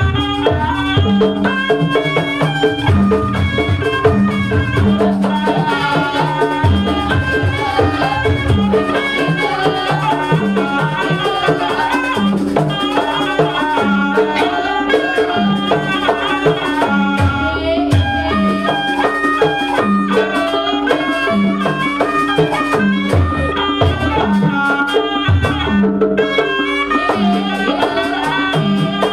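Jaranan accompaniment music: a reedy wind instrument plays a winding melody over a steady drone and a repeating pattern of drums and gongs.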